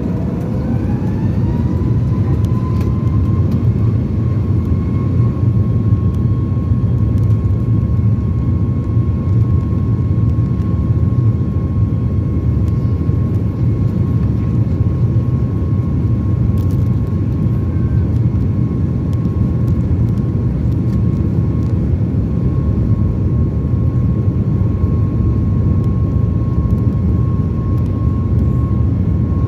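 Boeing 737 MAX's CFM LEAP-1B turbofan engines spooling up for takeoff: a whine rises over the first two seconds, then holds one steady pitch over a loud, steady low rumble.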